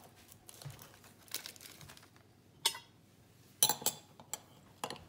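Plastic wrap crinkling as it is pulled off a glass jar, then a metal spoon knocking and scraping inside the glass jar in several sharp clinks in the second half.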